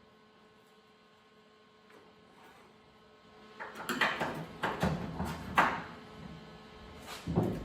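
A faint steady hum, then a quick cluster of loud metal knocks and clunks about four to six seconds in, and one more clunk near the end: sheet-metal work on an old truck cab.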